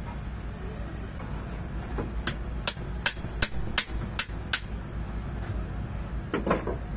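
Metal tapping on a Unic crane winch gear housing as locking pliers work at its rusted shaft lock: a run of about seven sharp taps, roughly three a second, then one duller knock near the end.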